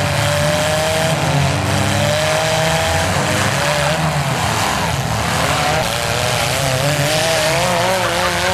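Several demolition derby cars' engines running loud and revving at once, their pitch wavering up and down as the cars push against each other.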